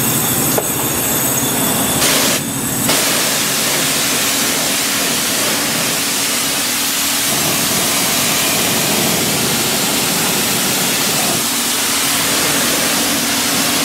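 High-pressure water jet from a spray wand hissing steadily as it blasts mud off a truck's door sill and floor, with a steady pump hum underneath. The spray settles into an even hiss about three seconds in.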